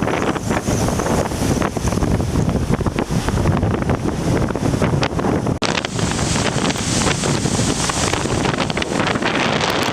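Strong typhoon wind buffeting the microphone over the rush of water and waves, a continuous loud roar with a brief break about five and a half seconds in.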